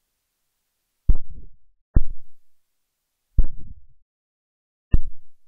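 Four dull thumps at uneven spacing, each sudden and dying away within about half a second, with nothing else heard between them.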